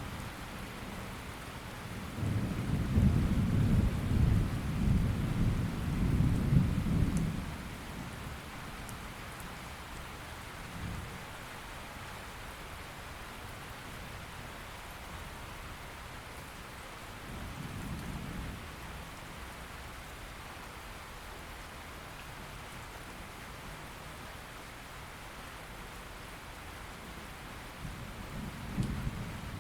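Steady rain falling, with thunder: a long, loud rumble starts about two seconds in and lasts some five seconds, fainter rumbles follow a few times, and another rolls in near the end.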